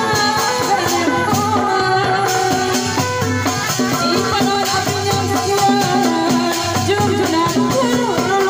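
Sundanese reak procession music, played loud through a street sound system: a wavering melodic line over drums and steady rattling percussion.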